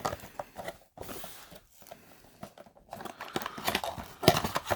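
Irregular scraping, clicking and rustling of a cardboard box and its packaging being opened and handled, sparse at first and busier over the last couple of seconds.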